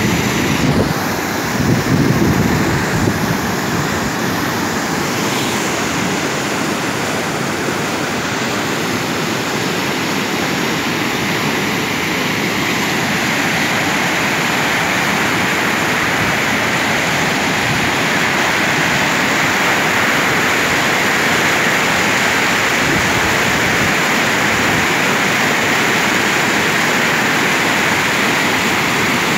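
Muddy floodwater rushing and churning in rapids over and around a broken stone causeway bridge on a swollen creek, a loud, steady rush of water that grows slightly brighter in tone about halfway through.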